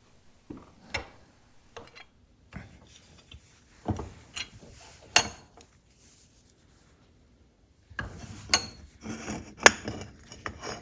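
Hand tools and small metal parts of a motorcycle fuel tap clicking, knocking and scraping as the tap's bent tab is worked straight. Irregular sharp clicks and taps come with rubbing in between, with a pause just past the middle.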